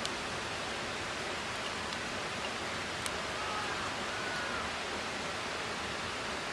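Steady rush of a mountain stream, an even hiss of running water with no let-up.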